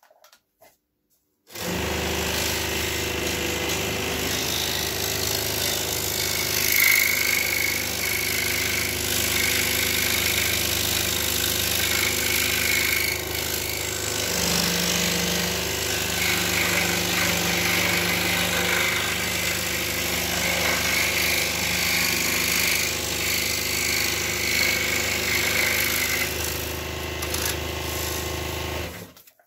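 Pégas 21-inch precision scroll saw switching on about a second and a half in and running steadily with its blade cutting through wood, then switched off just before the end.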